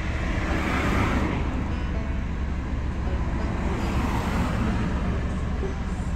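Cars passing close by on the road. The tyre and engine noise swells about a second in and again around four seconds. Faint plucked banjo notes from a street busker sound underneath.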